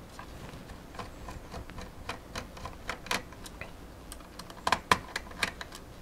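Small Phillips screwdriver turning out the bottom-case screws of an HP Chromebox, making faint, irregular metallic clicks and ticks. A few louder clicks come close together about five seconds in.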